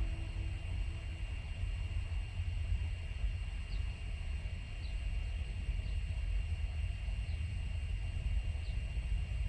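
Steady low rumble with a thin, steady high whine, as heard inside a parked car's cabin. A few faint, short chirps come through now and then.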